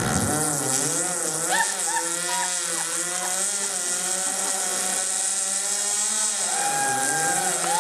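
A woman imitating a chainsaw with her voice, a buzzing, revving drone whose pitch swings up and down, then holds steadier near the end, mimicking a saw running with the choke on.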